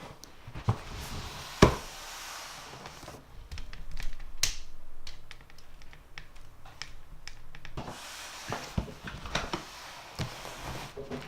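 Scattered clicks and taps, like objects being handled, with a sharp snap about a second and a half in and another about four and a half seconds in.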